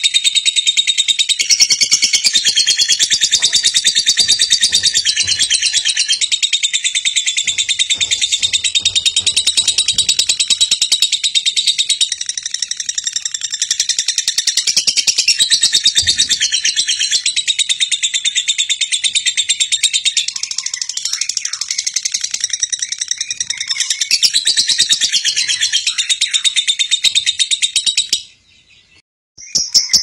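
A lovebird sings a long, unbroken stream of rapid, high-pitched chattering and trills, the non-stop 'konslet' song prized in Indonesian songbird contests. The song breaks off briefly about two seconds before the end, then resumes.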